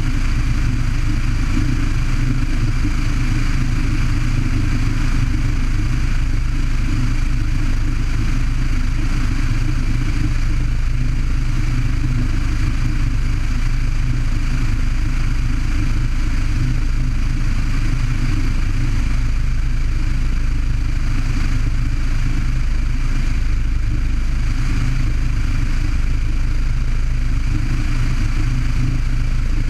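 Light single-engine aircraft's piston engine and propeller running steadily in cruise, heard from outside under the wing with airflow rushing past. The drone holds at one even pitch and level throughout.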